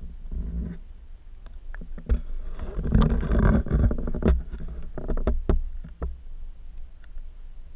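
Muffled low rumbling with a string of sharp knocks and taps from a handheld action camera in its housing being moved about, busiest around the middle.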